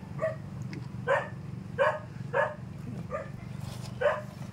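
A dog barking repeatedly, about six short barks a little under a second apart, over a steady low hum.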